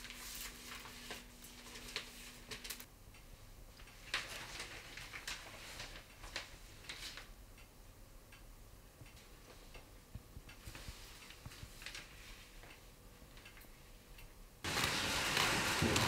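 Faint, irregular light clicks and ticks over a quiet background. About a second before the end, a much louder, even noise starts abruptly.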